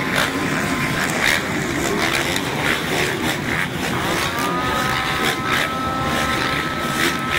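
Several motocross bikes revving hard as they race past and jump, engine pitch rising about four seconds in and then holding high.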